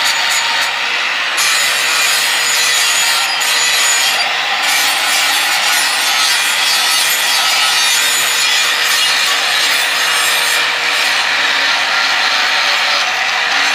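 Angle grinder running steadily, its abrasive disc grinding the edge of an iron chopping-knife blade to sharpen it: a continuous grinding hiss over a thin, steady motor whine.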